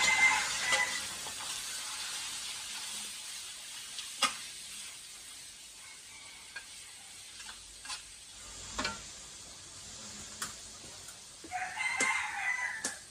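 Chicken pieces sizzling in a hot wok as they are stir-fried, the hiss strongest at first and dying down, with a few sharp clinks of the spatula against the steel wok. A rooster crows at the start and again near the end.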